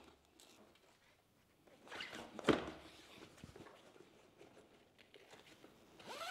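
Faint handling of a motorcycle luggage strap and its metal cam buckle as the webbing is fed through and pulled tight, with one sharper click about two and a half seconds in.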